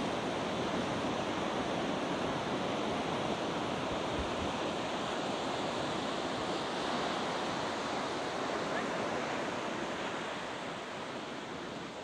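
Heavy surf of a rough monsoon sea breaking continuously in a steady rushing roar, a little quieter near the end.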